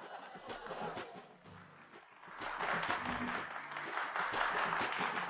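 Faint background music, with audience applause rising about two seconds in after a brief lull.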